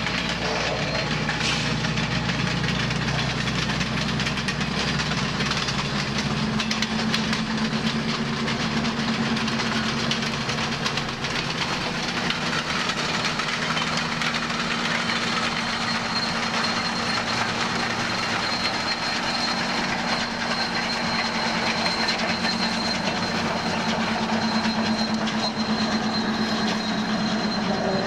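Union Pacific 844's steam-hauled train rolling by at speed: a continuous rumble of wheels on rail with clickety-clack over the rail joints. A steady low hum comes in after about six seconds, and a faint high whine about halfway through.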